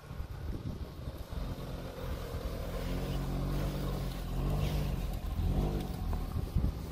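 2002 Nissan March's 1.4-litre four-cylinder engine revving as the car pulls across soft grass. The engine note climbs in pitch a couple of times, about halfway through and again near the end, and grows louder.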